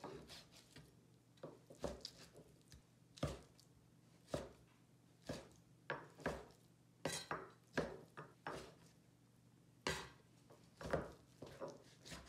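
Chinese cleaver chopping raw beef into cubes on a plastic cutting board: an irregular series of sharp knocks, about one or two a second.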